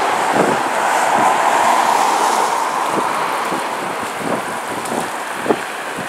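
Piper PA-38 Tomahawk light aircraft in flight, its piston engine and propeller giving a steady drone that slowly fades, with wind buffeting the microphone in short gusts.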